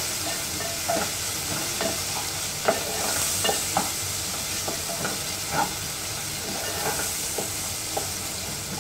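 Sliced onions sizzling in hot oil, frying until translucent, while a wooden spatula stirs them, scraping and knocking irregularly against the aluminium pot.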